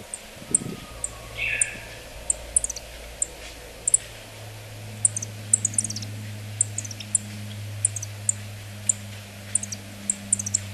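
Yellow-throated bunting giving short, sharp, very high 'tsip' calls at irregular intervals, sometimes in quick runs that step down in pitch. A steady low hum lies underneath.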